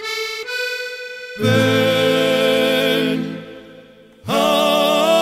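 Accordion-led band playing the instrumental close of a guajira: a short run of single notes, then a long held chord that fades away, and a second held chord coming in near the end.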